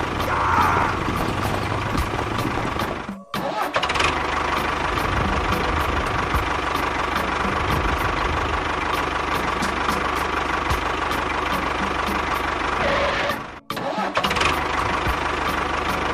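A small engine running steadily with a regular clicking beat, cut twice by brief silent gaps.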